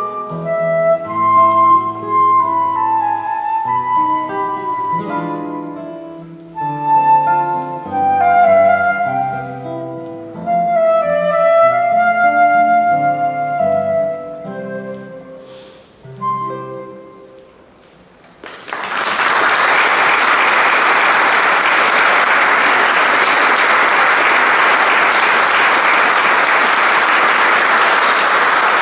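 Concert flute and classical guitar playing the slow closing bars of a piece, the notes thinning out and dying away about two-thirds of the way through. Then an audience breaks into steady applause, louder than the music.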